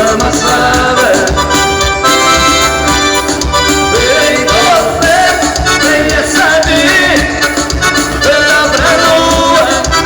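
Band music with accordion leading the melody over a steady beat, and a singing voice.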